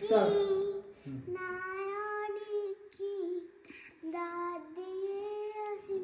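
A young girl singing solo with no accompaniment, holding long, steady notes with short breaks between phrases. She sings loudest in the first second.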